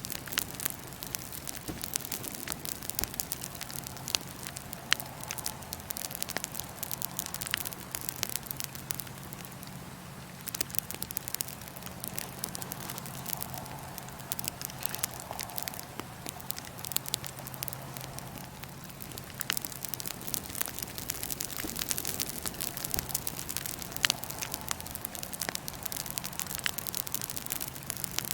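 Wood fire in a fire pit crackling steadily, with frequent sharp pops of the burning wood; two pops about five seconds in and near the end stand out loudest.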